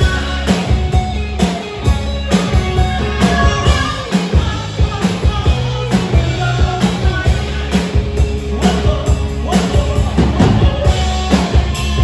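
Live rock band playing: a male singer over electric guitars and a drum kit, with a steady drum beat.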